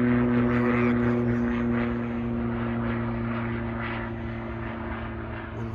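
A distant engine's steady drone, holding one pitch and slowly fading away.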